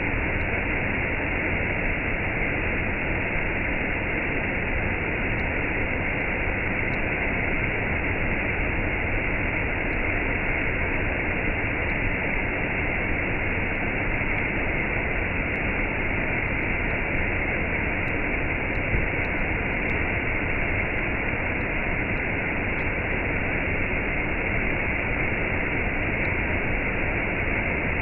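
Waterfall with a cascade: a steady, unchanging rush of falling water.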